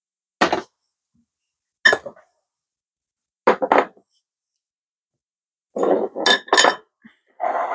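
Small glass baking dishes clinking and knocking as they are handled and set down on a kitchen counter: a few separate clinks, then a quick run of several clinks and knocks near the end.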